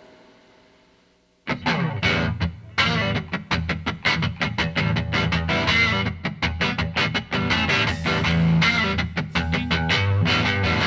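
Background music: a brief silence as one track fades out, then a guitar track begins about a second and a half in, with rapid picked notes over a steady bass.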